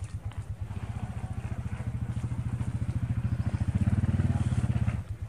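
Small engine running with a rapid, even putter, growing louder over a few seconds and then dropping off abruptly about five seconds in.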